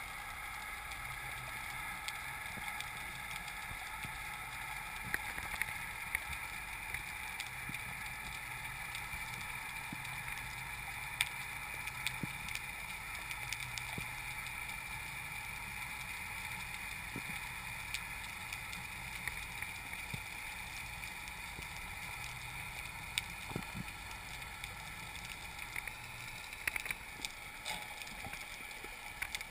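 Kayak on open water: a steady wash of water and wind noise from paddling, with a few faint clicks scattered through it.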